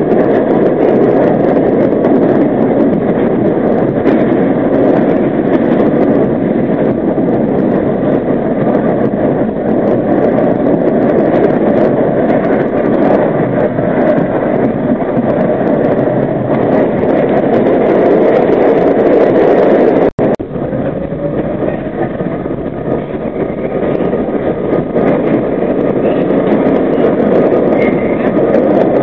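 R32 subway car running through a tunnel, heard from inside the car at the front window: a steady loud wheel-and-track noise. The sound cuts out for an instant about twenty seconds in, then carries on as before.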